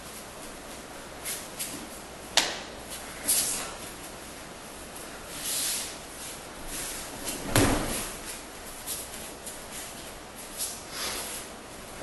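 Aikido practitioners moving barefoot on a padded mat: uniform rustling and feet sliding, a sharp slap a little over two seconds in, and a heavy thud on the mat about two thirds of the way through.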